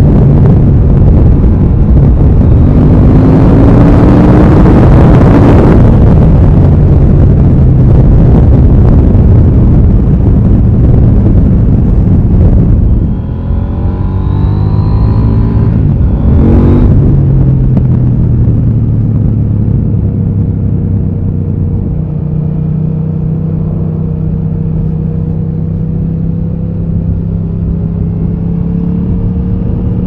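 KTM 890 Duke R's parallel-twin engine pulling at road speed, with heavy wind rush for the first few seconds. A little before halfway the sound dips and the engine note climbs, with a short sharp burst just after. It then settles into a steady cruise.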